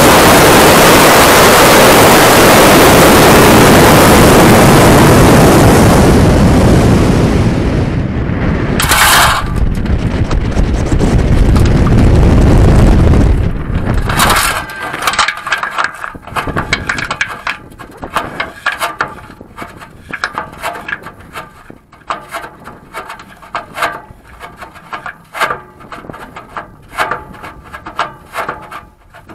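Model rocket's onboard camera microphone during flight: a loud, steady rush of motor exhaust and air for about fourteen seconds, with a short sharp burst around nine seconds in. After that it drops to a much quieter stretch of irregular clicking, rattling and scraping as the rocket comes down under its parachute.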